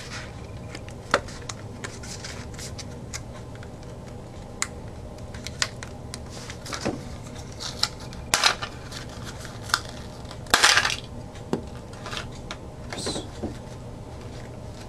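A mailed package being opened and its contents handled by hand: scattered clicks and taps with a few short rasping tears or rustles, the loudest about ten and a half seconds in, over a steady low hum.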